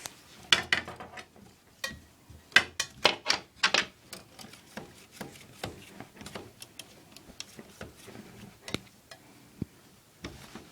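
A stiff wire being worked down a clogged drain pipe, with irregular clicks, knocks and scrapes of metal. The sounds come in quick clusters in the first four seconds and become scattered, lighter ticks after that.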